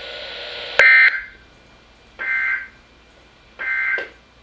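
Emergency Alert System end-of-message data bursts over NOAA Weather Radio: three short squawks of digital data tones about 1.4 s apart, the first the loudest, which mark the end of the alert message. Radio hiss comes before the first burst.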